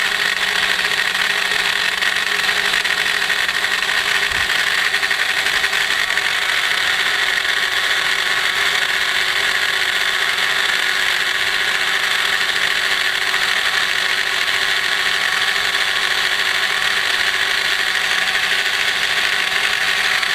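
Proxxon MF70 micro milling machine running steadily at high speed, its small cutter milling a shallow groove into wood as the table is fed by hand-wheel.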